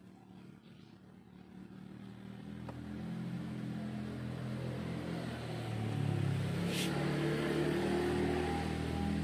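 Honda Scoopy FI scooter's small single-cylinder four-stroke engine running, swelling over the first few seconds and then holding steady, with a brief click about seven seconds in. It runs because its ignition spark is back after the rat-chewed wire to the ignition coil was repaired.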